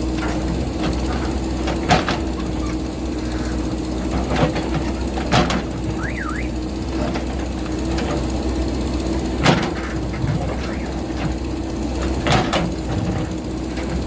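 JCB backhoe loader's diesel engine running steadily under load while digging into a rocky hillside. Several sharp knocks and clanks come a few seconds apart as the bucket strikes rock.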